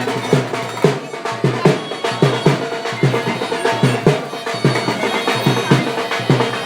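Live traditional Indian folk music from a dance troupe: a drum struck hard about two to three times a second in an uneven rhythm, each stroke dropping in pitch, with a reedy wind instrument above it and market crowd noise beneath.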